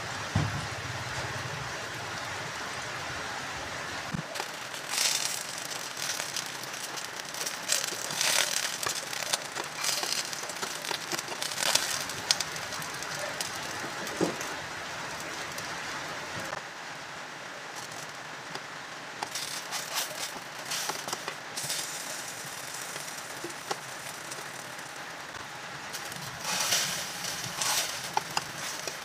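Eggplant frying in oil in a pan: a steady sizzle with bursts of louder crackling now and then.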